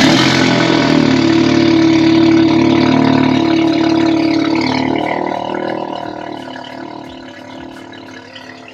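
Audi S3's turbocharged 2.0-litre four-cylinder engine, just started, running at a high start-up idle through a freshly fitted 3-inch Scorpion downpipe and APR intake. About five seconds in it settles down to a lower, quieter idle.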